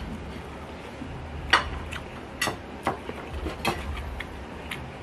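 Eating by hand from a ceramic plate of rice and fried dried anchovies: about five short, sharp clicks at uneven intervals, the loudest about a second and a half in.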